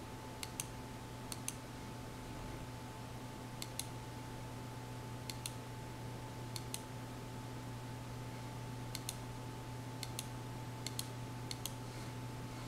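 Single clicks on a computer, each a quick double tick of press and release, about nine of them spaced irregularly a second or so apart. A steady low hum runs underneath.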